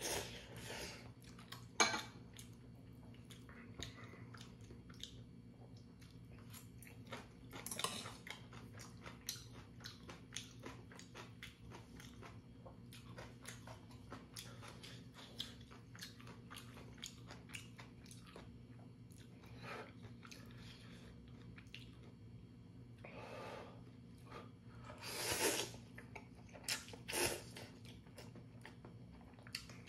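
Close-miked eating of instant ramyeon noodles: wet chewing and small mouth clicks throughout, broken by a few louder noodle slurps, at the start, about eight seconds in, and twice near the end. A faint steady low hum runs underneath.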